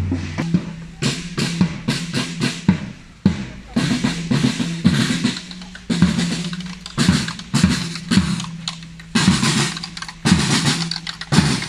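Marching snare drums carried by a column of marchers, beating a marching cadence: sharp strokes in quick clusters with a ringing drum tone beneath.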